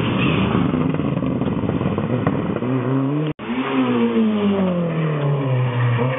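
Rally cars driven flat out past on a closed road stage. One engine's note rises hard as it accelerates, then after a short break another car's engine note falls away as it goes past.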